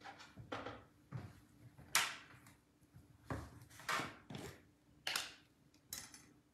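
Scattered kitchen knocks and clunks, about half a dozen, the loudest about two seconds in, as a jar of mayonnaise is fetched and handled.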